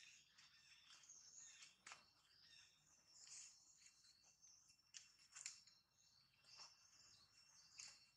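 Near silence: faint outdoor ambience of insects holding thin, steady high tones, with scattered faint chirps and a few soft ticks.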